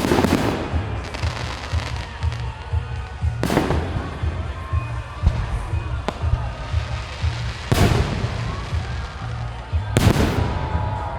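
Fireworks display: four loud shell bursts, at the start, about three and a half seconds in, near eight seconds and around ten seconds, each followed by a trailing crackle.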